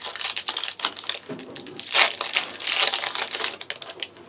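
Foil booster pack wrapper crinkling and crackling as it is handled and torn open, loudest about two seconds in.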